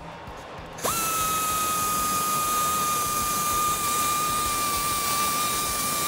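Die grinder with a flap wheel starting up about a second in, then running at a steady high-pitched whine over a hiss as it smooths freshly cut edges on the steel truck frame.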